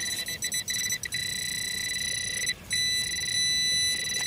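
Handheld metal-detecting pinpointer sounding a steady, high alert tone, with a few brief flickers near the start and a short break about two and a half seconds in. The tone signals metal in the dug hole.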